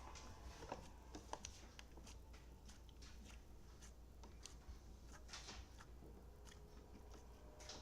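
Near silence, with faint scattered clicks and soft squishes from hands handling homemade slime, over a low steady hum.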